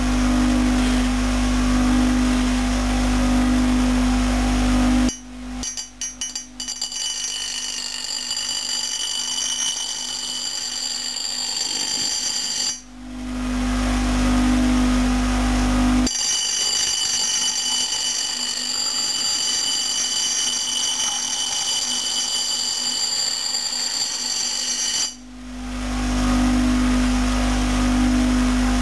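Electric bench grinder running with a steady low hum. Twice the hum drops out abruptly, leaving a thinner high-pitched whine for several seconds, and then comes back after a brief dip and swell in level.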